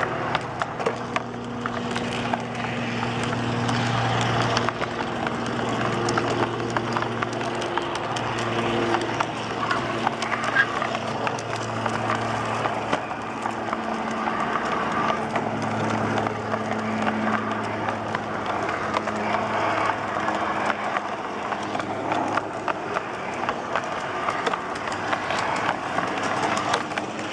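Model garden-railway vehicle, a G-scale VW Bus draisine, running along the track: a steady electric-motor and gear hum that swells and eases over a few seconds, with a fast patter of clicks from the wheels on the rails.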